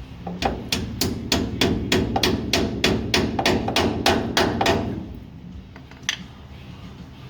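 Hammer blows in a quick, even series, about fifteen strikes at roughly three and a half a second, followed by a single strike about a second later.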